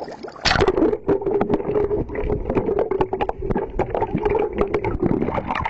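Sound picked up with the camera underwater: muffled water noise with many knocks and clicks over a steady hum, starting about half a second in.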